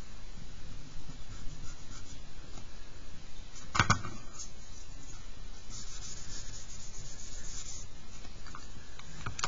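A hand rubbing and blending charcoal on drawing paper in repeated scratchy strokes, with a single knock about four seconds in.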